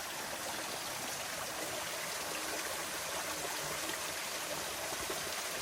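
Spring water running in a steady, even rush, flowing from a natural mountain spring into a dug canal.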